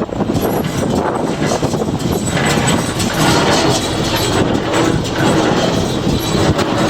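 John Deere 336 small square baler running, its mechanism clattering steadily with a dense stream of knocks and clicks.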